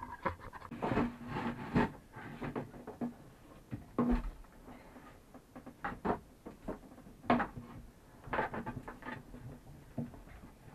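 Irregular knocks, taps and rubbing of a plastic freshwater hose being hauled up out of a floor hatch and handled.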